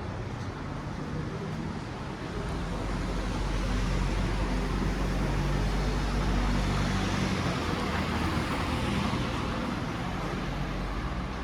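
A motor vehicle's engine running close by on a city street, growing louder about two seconds in and easing off near the end, over steady traffic noise.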